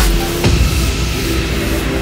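Electronic background music with a heavy beat about twice a second. About half a second in, the drum hits drop out, leaving held tones.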